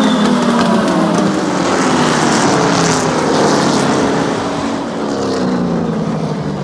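Several circle-track race car engines running together on the oval, their pitch slowly falling.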